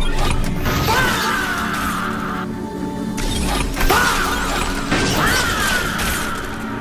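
Cartoon action sound effects: mechanical clanks and sharp impacts, with three falling whines, over dark, tense background music.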